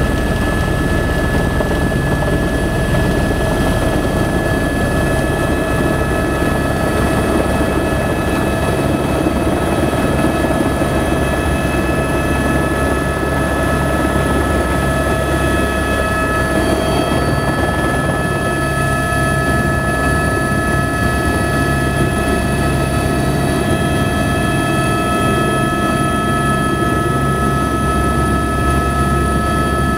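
Helicopter engine and rotor running steadily, heard inside the cabin: a constant drone with steady high whining tones, a few of which shift slightly about halfway through.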